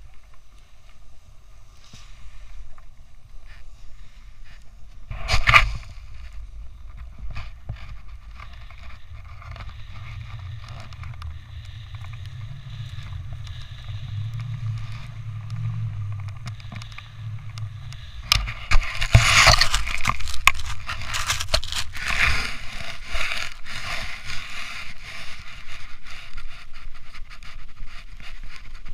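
Snowboard sliding and scraping through fresh powder, with wind rushing on the camera microphone. There is a short loud scrape about five seconds in, and a longer stretch of hard scraping from about eighteen to twenty-three seconds in.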